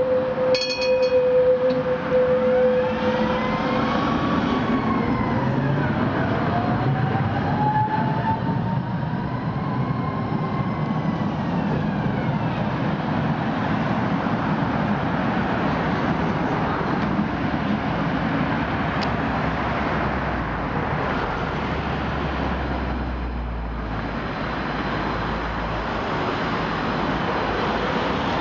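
Steady street traffic and Tatra tram running sounds, with several tones rising and falling and one long rising whine in the first twelve seconds. A two-car tram draws near toward the end.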